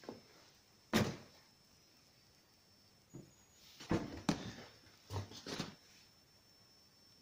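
A sharp knock about a second in, then a cluster of four knocks and thuds about halfway through.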